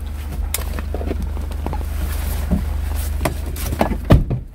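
Truck engine idling, a steady low hum heard inside the cab, with scattered clicks and knocks from things being handled; the loudest knock comes about four seconds in.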